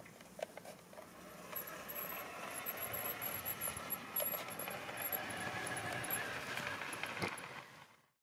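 LGB garden-railway model locomotive running, its electric motor and gears whirring as it pushes a homemade snowplow through snow on the track. The sound grows louder over the first couple of seconds as it approaches, carries a few sharp clicks, and cuts off abruptly near the end.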